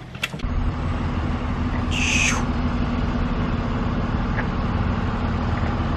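Steady low hum of vehicle engines and traffic, with one short high-pitched call about two seconds in.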